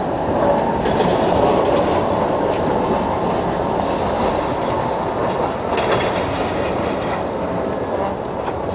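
Yellow articulated tram running past close by, its wheels rumbling on the rails, with a brief clatter of wheels over the track about six seconds in.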